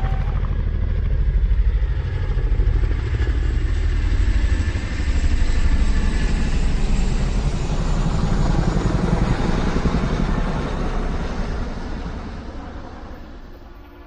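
A motor vehicle engine running close by with a deep, steady drone, fading away over the last few seconds.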